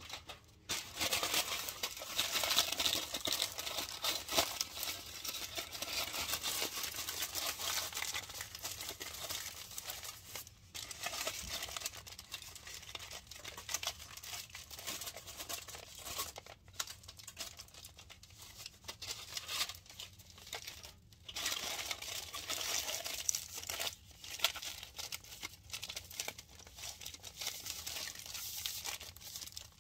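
Aluminium foil crinkling as it is wrapped and squeezed tightly around a packed block of cornstarch, with a few short pauses in the handling.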